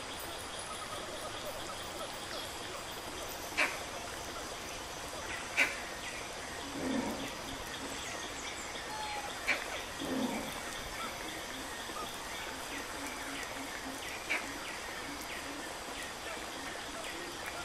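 Steady background hiss with four sharp clicks or taps spread through it, and two brief muffled low sounds a few seconds apart near the middle.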